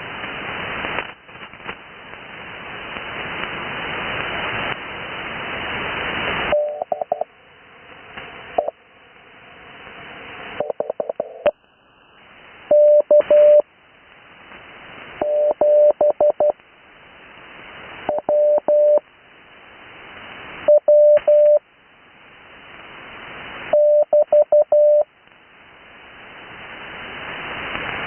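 Morse code (CW) heard through an 80 m amateur-radio receiver: single characters of one steady tone keyed at about 12 words per minute, with long Farnsworth gaps between them, about seven characters in all. Band hiss fills the first six seconds or so and swells again in each gap between characters.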